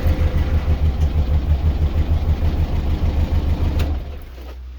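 Morris Minor's four-cylinder A-series engine idling with the lead pulled off spark plug number 1, running on three cylinders with an uneven, lumpy beat: much worse running, which marks number 1 as a healthy cylinder in a cylinder-drop misfire test. The engine sound falls away sharply about four seconds in.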